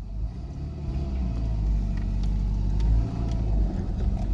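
Tofaş Doğan's engine running cold, its pitch rising and falling gently in the middle.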